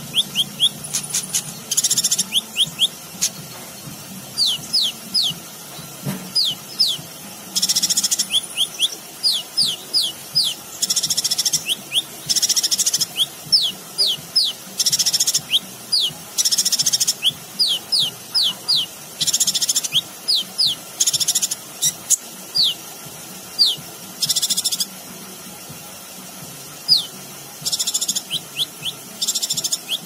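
Male Van Hasselt's sunbird (kolibri ninja) singing: quick runs of thin, high slurred whistles broken every couple of seconds by short buzzy, trilling bursts, with a lull in the middle of the song.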